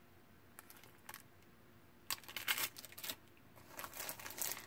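Clear plastic-bagged sticker and ephemera packs being handled on a tabletop. There are a couple of light taps in the first second, then short bursts of crinkling and rustling about two seconds in and again near the end.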